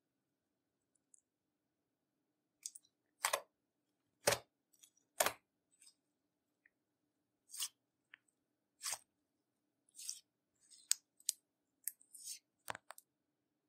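Clear slime being squeezed and worked by hand, giving a series of short pops and crackles: three loud ones about a second apart, then smaller ones scattered irregularly.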